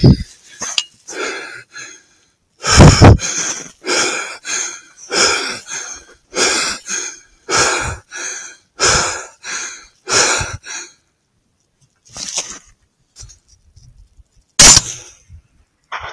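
A person breathing hard close to the microphone: loud, rapid, even breaths in and out, about two a second, stopping about eleven seconds in. A single sharp puff of breath comes near the end.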